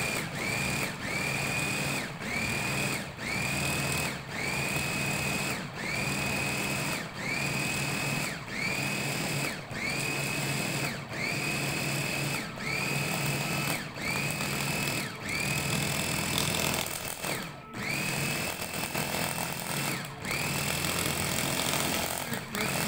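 Electric mini chopper (hachoir) chopping parsley in short pulses, switched by pressing its top. Its motor spins up with a quickly rising whine that then holds steady, cuts off, and starts again about once a second.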